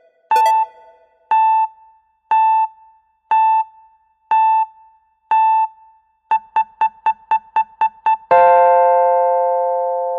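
Countdown timer alarm: an electronic beep once a second, then quickening to short beeps about four a second, then a loud sustained chord-like alarm tone that slowly fades, marking the end of the countdown.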